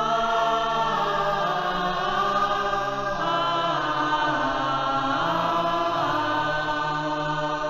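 Song soundtrack in a wordless passage: choir-like voices holding long, slowly shifting notes.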